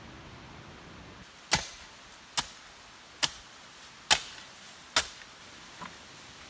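Five sharp strikes, evenly spaced a little under a second apart, followed by a fainter tap near the end.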